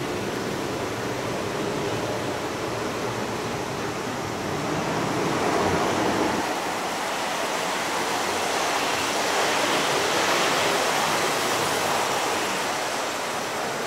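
Lionel O gauge model trains running on three-rail track: a steady rushing rumble of wheels and motors, growing louder about five seconds in and again for a few seconds later on as a train comes close.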